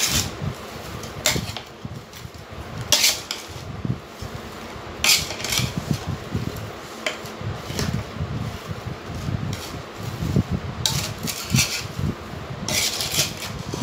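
Metal spoon scraping and clinking against the side of a large metal pot while chunks of raw mango coated in spices, oil and salt are stirred for mango pickle. The strokes come irregularly every second or two, with a run of them near the end, and a soft squelchy rustle of the stirred pieces in between.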